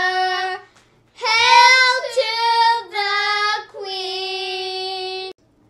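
A child's solo singing voice on a few long, drawn-out notes with short breaths between them. It ends on one long held note that cuts off shortly before the end.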